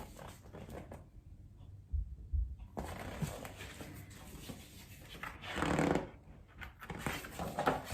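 Quiet handling of a picture book: two soft low thumps, then paper rustling and a louder rustle near six seconds in, as pages are turned.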